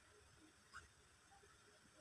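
Near silence: faint room tone, with one short faint click a little under a second in.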